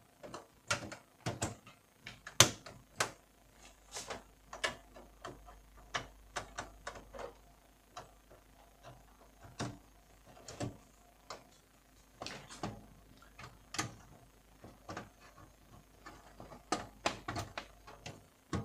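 Irregular clicks and knocks of computer hardware being handled as a graphics card is fitted back into a PC case, the loudest knock about two and a half seconds in.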